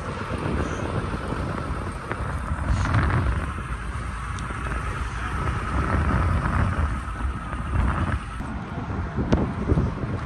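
Wind buffeting the microphone over a low, steady engine rumble, with a few faint ticks.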